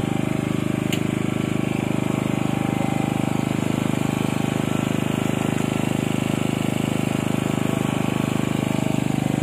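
A small engine running steadily at one speed, a low, even drone that does not change.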